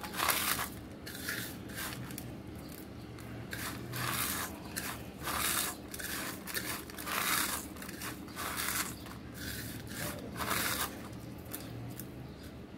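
Crispy fried onions (birista) being crushed between the fingers on a plate: irregular dry crunching and crackling, a crunch every half second or so, stopping about a second before the end.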